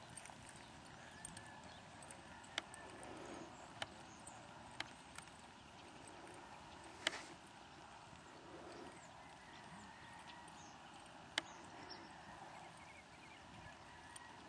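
Faint hoofbeats of a mare loping on a soft dirt arena, with a handful of sharp clicks scattered irregularly through, the loudest about halfway and again near the end.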